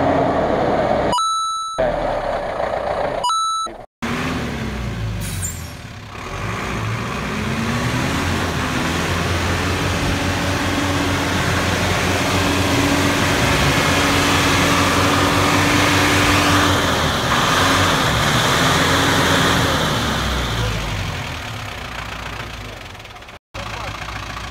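Cab-over 4x4 army truck's engine revving hard under load as it drives through a muddy stream, its pitch rising and falling. The engine note dies away toward the end. Two short cuts break the sound early on.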